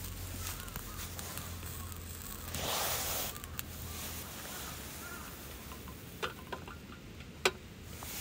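Quiet outdoor background with a few faint chirps, a short rush of noise about three seconds in, and several sharp clicks near the end, the last one the loudest.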